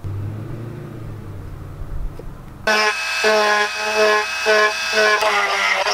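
Small handheld power tool drilling through the plastic mounting tabs of a gauge cluster, starting suddenly a couple of seconds in after a low rumble, its motor whine running in short trigger pulses about every half second and dipping in pitch as the bit bites.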